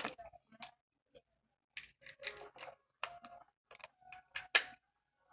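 Scattered short clicks and crackles of eating and handling seafood-boil food, with a louder sharp crack about four and a half seconds in.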